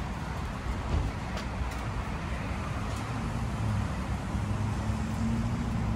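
Harley-Davidson touring motorcycle's V-twin engine idling, a low steady rumble that grows a little stronger about four seconds in.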